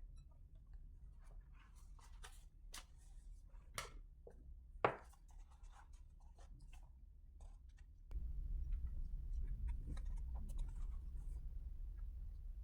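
Quiet scratching and light taps of paper being handled, with one louder scratching stroke about five seconds in. A low hum in the background gets louder about eight seconds in.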